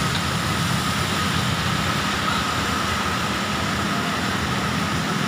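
Steady heavy rain with an engine running low and even beneath it.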